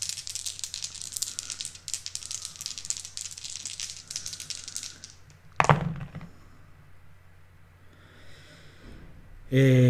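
Several game dice rattling and clattering for about five seconds as they are shaken and rolled. About halfway through there is one short, louder thump.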